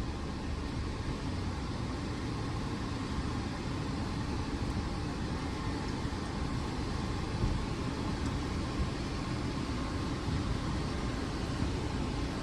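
Hyundai Creta running steadily at low speed while reversing, a constant low rumble with a couple of faint knocks.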